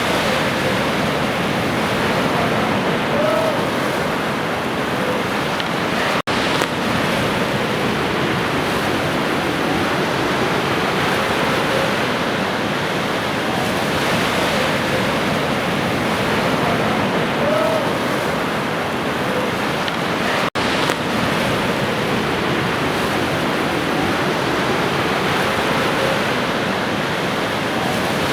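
Ocean waves washing steadily on a shore, with the sound cutting out for an instant twice.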